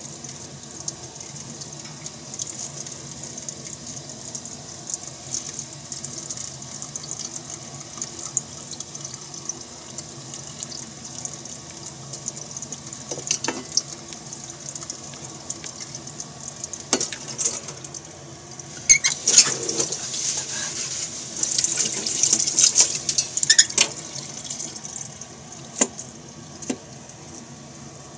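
Garlic cloves being peeled by hand: the papery skins rustle and crackle, loudest for a few seconds past the middle, with a few light clicks against the cutting board, over a steady hiss. The cook finds these cloves not fully dried, so the skins cling.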